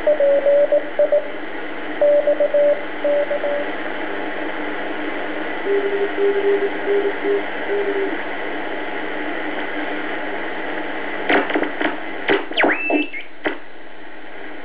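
Shortwave static from a BC-312G valve communications receiver, with Morse code signals keyed on and off as steady beat tones: a higher one at the start and a lower one from about six to eight seconds in. From about eleven seconds the receiver is being tuned, and whistles and crackles sweep in pitch as stations slide past.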